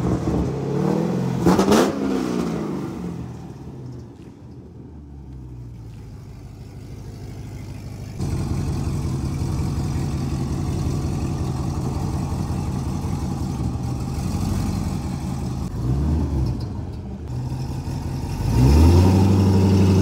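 C6 Corvette's V8 blipped twice in quick revs, then idling steadily. Near the end it revs up as the car pulls away.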